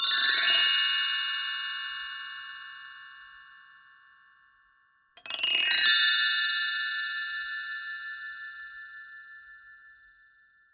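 Two shimmering chime transition sound effects, each a quick cascade of bright bell-like notes that rings on and fades away over about four seconds; the second begins about five seconds in.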